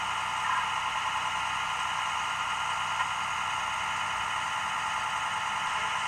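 Steady, tinny hiss of outdoor background noise, played back through a small loudspeaker, with no distinct single sound standing out.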